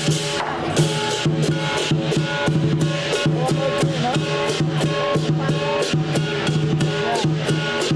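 Lion dance percussion band playing: a big drum beating steadily under cymbals and gongs clashing about four times a second.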